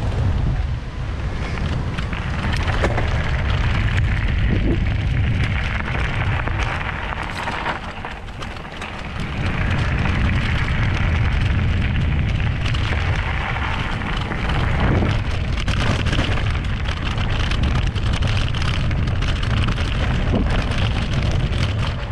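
Wind rushing over the microphone and tyres rolling on a rough path as an e-bike is ridden along, with scattered knocks and rattles from bumps. The noise eases off briefly about eight seconds in.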